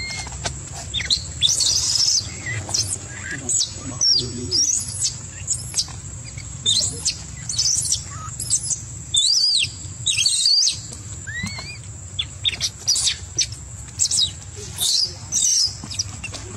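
Baby macaque crying: many short, high-pitched squeals and chirps in quick succession, several of them rising in pitch.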